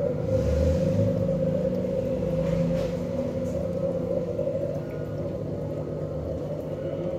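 Steady hum of an aquarium filter pump: one constant mid-pitched tone over a low drone, with a brief low thump about half a second in.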